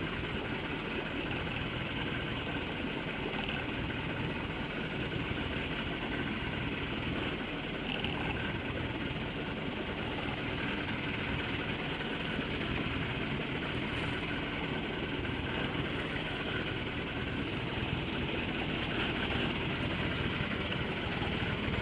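Fishing boat's engine idling steadily with a low drone.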